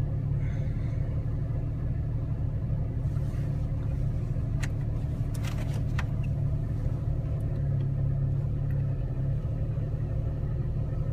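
A vehicle engine idles steadily with an even, low rumble. A few sharp clicks or knocks come about halfway through.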